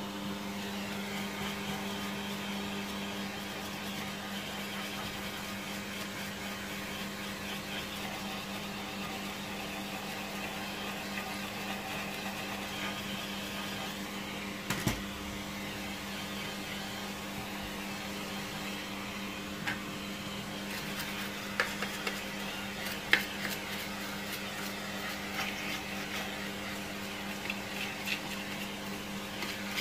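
Vacuum cleaner motor running steadily with a low hum while it sucks dust out of a vacuum floor head, with occasional sharp knocks of the nozzle against it.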